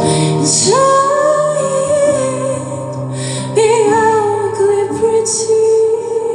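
A female voice singing two long, held wordless notes, each sliding up into pitch, over sustained instrumental chords: the closing bars of a song.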